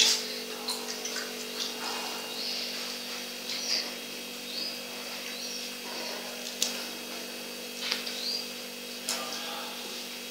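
Scattered short, high-pitched chirps over a steady low electrical hum, with a few sharp clicks.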